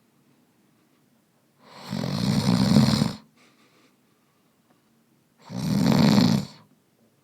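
Snoring: two loud, rattling snores, the first about a second and a half long and the second about a second, roughly four seconds apart with near silence between.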